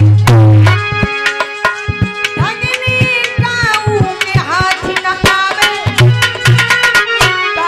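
Devotional bhajan accompaniment: hand drums beating a quick rhythm, with a deep bass stroke at the start, over held melody notes that slide in pitch in places.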